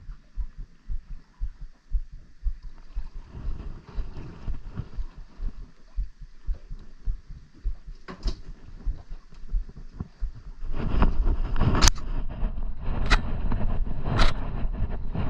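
Wind buffeting the microphone on an open boat in low, irregular thumps, turning into a louder steady rush about two thirds of the way in. One sharp knock comes about halfway through and three more come near the end.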